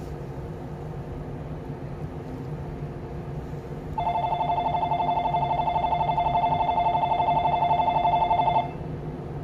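Platform departure bell ringing for about four and a half seconds, a loud, fast-trilling electric tone that starts about four seconds in and cuts off suddenly. Under it runs the steady hum of the stopped Shinano Railway 115 series train.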